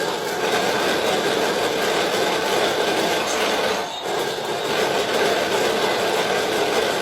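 Washing machine running, a loud steady mechanical rumble and rattle that dips briefly about four seconds in.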